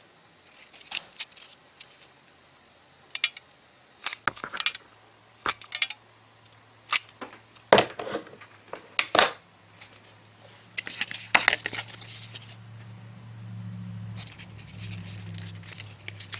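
Scattered short taps, clicks and rustles of cardboard and paper being handled on a table as a cardboard handle is glued to the launcher body, with a low hum coming up over the last few seconds.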